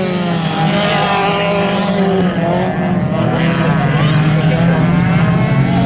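Several autocross race cars' engines running hard around a dirt track, their pitches rising and falling as they accelerate and lift, with voices mixed in.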